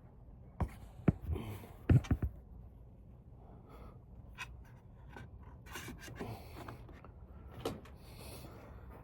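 Hands working drip-rail mounting hardware (bolts, T-nuts, plastic spacers on the aluminum rail): a few sharp knocks and clacks in the first two and a half seconds, the loudest a quick cluster about two seconds in, then small ticks and rustling.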